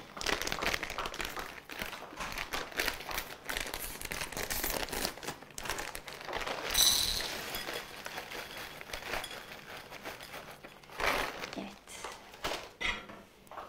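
Plastic packet of mixed vegetables crinkling as it is handled, opened and emptied into a bowl, with a louder rustle about seven seconds in.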